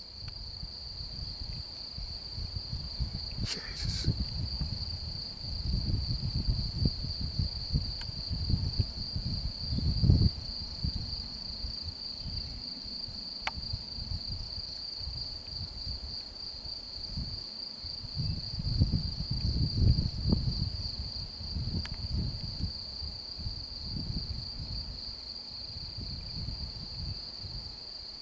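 An insect trills without a break in a high, rapidly pulsing tone, under low, uneven rumbling from wind buffeting the microphone; a brief higher chirp comes about four seconds in.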